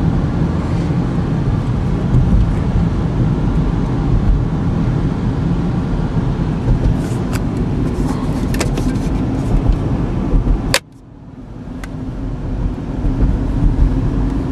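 Steady road and tyre rumble inside the cabin of a 2014 Chevy Equinox driving at speed, with a few small clicks. About eleven seconds in, a sharp click is followed by a sudden drop in the noise, which builds back up over the next few seconds.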